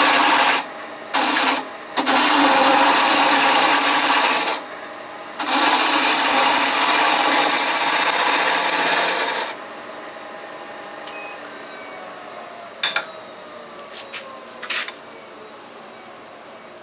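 Wood lathe turning a walnut handle blank: a tool cuts the spinning wood in several long bursts with short pauses. Then the lathe is switched off and its hum falls in pitch as it spins down, with a few light clicks near the end.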